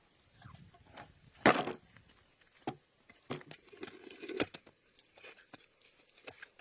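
Scattered knocks and rustling, crackling handling noises, the loudest a sharp burst about a second and a half in, with another run of rustling and knocks near the middle.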